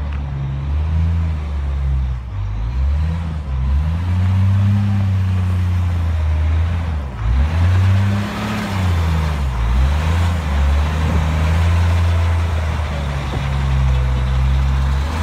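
Caterpillar 972H wheel loader's diesel engine running, revving up and settling back down twice.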